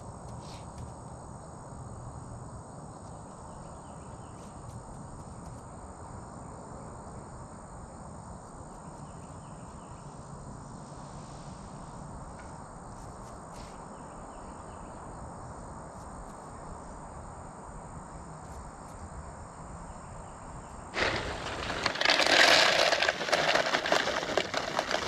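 A steady high insect chorus over a faint outdoor background. About 21 seconds in it is drowned by loud crinkling of a paper seed bag being handled as corn seed is poured into a plastic container.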